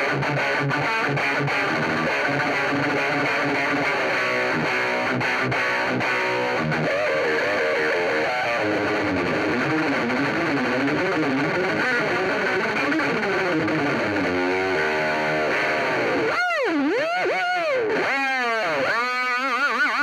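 Electric guitar, an ESP M-II played through an SSAudio Shout distortion pedal into a Marshall JCM900 amp, heavily distorted, playing a continuous run of lead lines with bent, wavering notes. In the last few seconds the pitch swoops widely down and back up several times.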